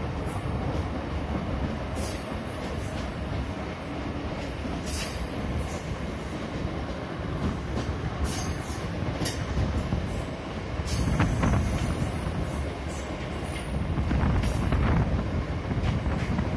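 A moving train running on the rails, heard from aboard: a steady rumble of wheels on track with sharp clicks and clatter now and then, swelling louder about eleven seconds in and again near the end.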